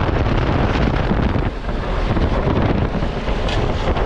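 Loud, steady wind rushing over the microphone through the open window of a moving vehicle at highway speed, mixed with road and engine noise.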